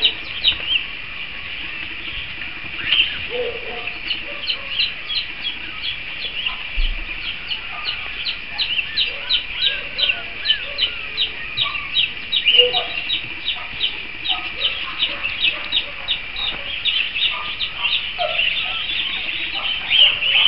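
Young puppies squealing in short, high-pitched squeaks, about three a second, with scattered lower yips and whines from the dogs around them.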